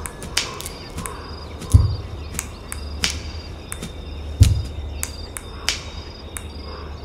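Cricket-like chirping with scattered sharp clicks, over deep bass thuds that come about every two and a half seconds, three times.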